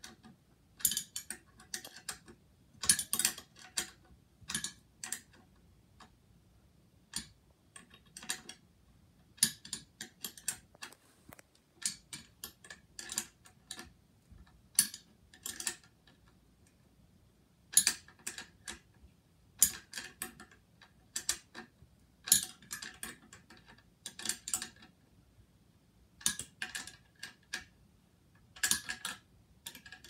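Irregular clusters of sharp clicks and short metallic rattles from small parts and a hand tool being handled while a ceiling fan's light kit is put back together.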